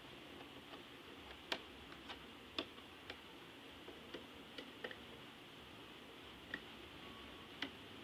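Irregular small clicks and taps of a screwdriver on the terminal screws and plastic body of a two-gang light switch, about a dozen of them over a faint steady hiss, the sharpest about one and a half and two and a half seconds in.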